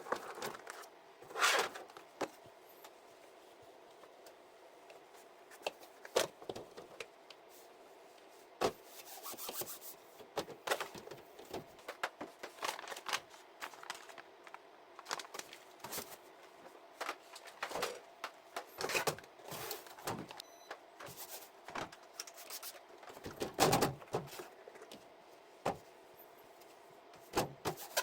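Handling noises from cleaning out a refrigerator: scattered clicks, knocks and rubbing as containers and shelves are moved and wiped, over a faint steady hum.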